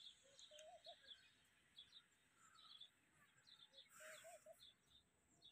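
Faint birdsong: small birds chirping in quick, short, high notes, with a lower warbling call twice and a brief rustle about four seconds in.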